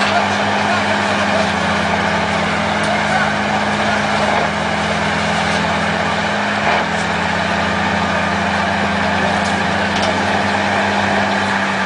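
Heavy semi truck's diesel engine running at a steady speed, a constant low hum with noise above it.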